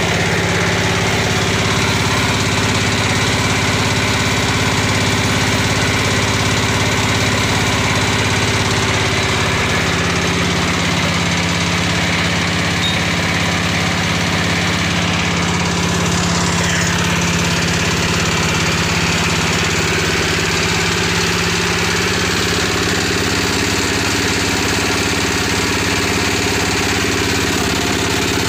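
Single-cylinder diesel engine running steadily under throttle, driving a 3-ton winch through a belt and gearbox as its drum winds in steel wire rope. The engine note changes slightly about ten seconds in.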